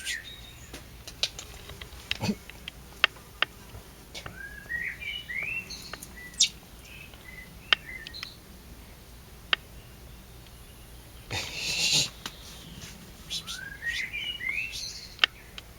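Young blackbird chirping: short rising chirps in two clusters, about four seconds in and again near the end, with scattered clicks and a brief rustling burst about twelve seconds in.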